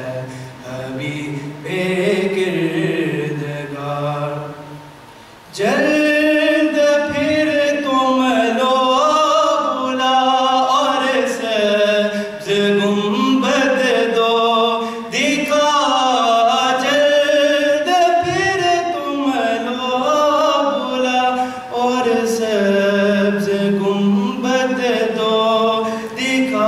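Unaccompanied male voice singing a naat, an Urdu devotional poem, through a microphone with long, wavering held notes. It is softer and lower for the first few seconds, then comes in louder about five and a half seconds in.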